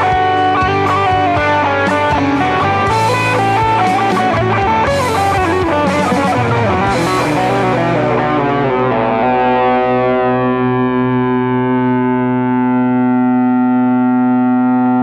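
Electric guitar played through effects with some distortion: a busy run of notes and chords that settles, about nine seconds in, into one long held chord that rings on.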